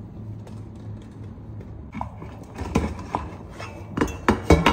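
Kitchen cookware and utensils knocking and clinking a few times, the knocks coming closer together and louder near the end.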